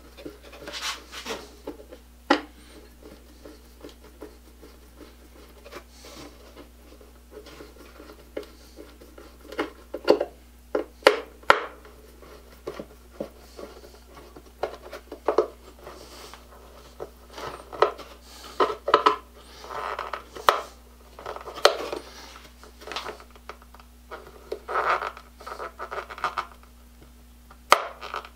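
Hand screwdriver driving a wood screw into old pallet-wood boards: irregular clicks and short scrapes of the driver tip and screw working into the wood, with brief creaks now and then.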